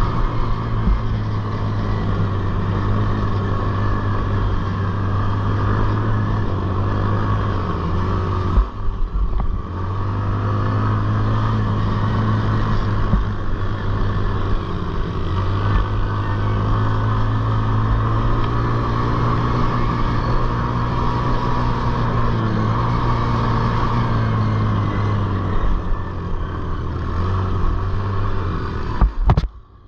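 Small racing ATV engine running hard at steady high revs, easing off briefly about a third of the way through before pulling again, then dropping away sharply near the end.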